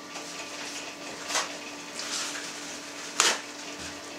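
Paper towel pulled off a roll and torn: two short papery rips, the second sharper and louder, near the end. A faint steady hum runs underneath.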